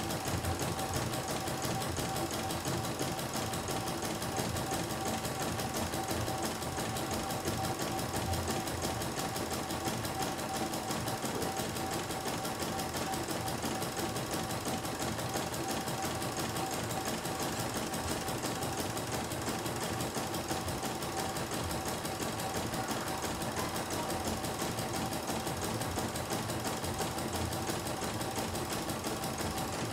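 CNY E900 computerized embroidery machine stitching a design: a fast, steady needle chatter under a constant motor whine, while the embroidery arm steps the hoop under the needle.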